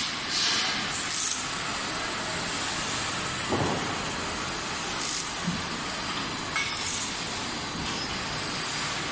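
Steady mechanical background noise of an automobile assembly plant, an even hiss and hum, with several brief hisses near the start and about five seconds in.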